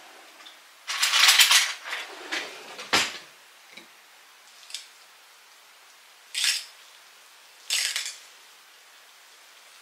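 Metal fork scraping and clinking against a stainless steel mixing bowl while pasta and chicken are tossed. The longest and loudest scrape comes about a second in, a sharp clink near three seconds, then two short scrapes later on.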